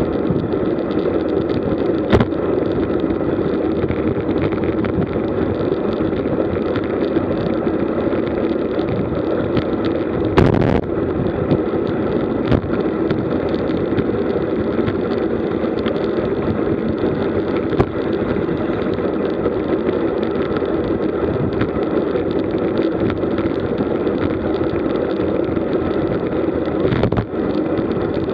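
Steady rush of wind on the camera microphone together with road-bike tyres rolling on asphalt at about 40 km/h. A few short knocks break through, the loudest about ten seconds in.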